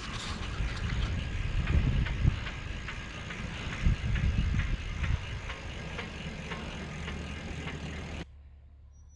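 Wind rushing over the microphone of a camera on a moving bicycle, a fluctuating low rumble with scattered light ticks. It cuts off suddenly about a second before the end, leaving a quiet background.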